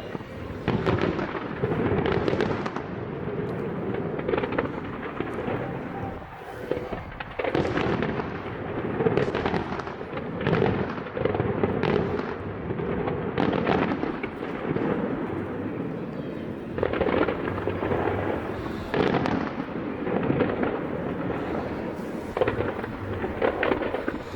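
Fireworks display: many shells bursting in quick succession, their bangs overlapping into a continuous rumble.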